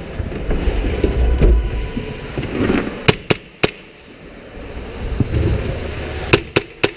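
Airsoft guns firing: three sharp pops in quick succession about three seconds in, and three more near the end, over a low rumble during the first two seconds.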